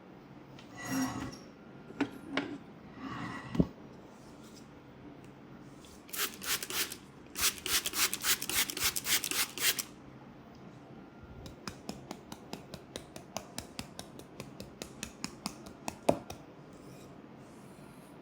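Hands working over a person's head and hair in a head massage: a couple of soft rubbing swells with a few clicks, then a run of fast, strong rubbing strokes, then a quicker, lighter series of taps.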